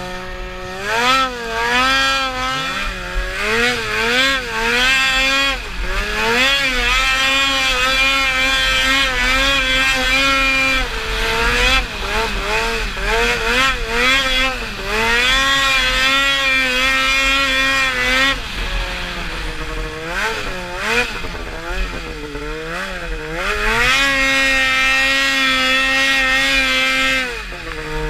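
Snowmobile engine being ridden hard, the revs rising and falling again and again, held high for several seconds at a time with quick throttle blips in between. Near the end it drops to a lower, steadier speed.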